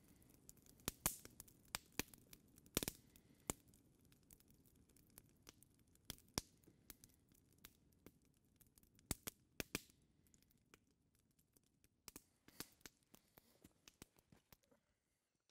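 Wood campfire crackling faintly, with irregular sharp pops of varying loudness that fade out near the end.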